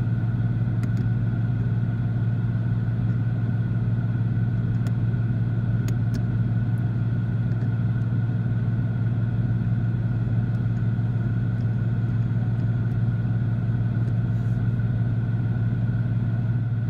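2015 Ford Mustang's 5.0 V8 engine idling steadily, with a few faint clicks.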